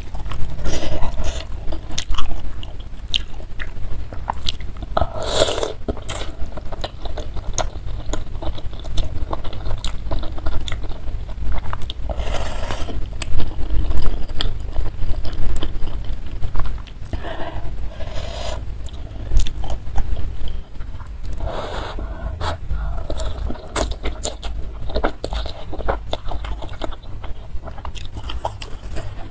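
Close-miked eating of spicy instant noodles in broth with meatballs and boneless chicken feet: noodles slurped in several short swells, wet chewing, and a metal fork and spoon scraping and clicking in the bowl, over a steady low hum.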